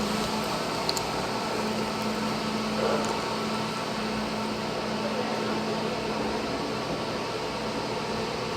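Steady mechanical hum and air noise with a low droning tone.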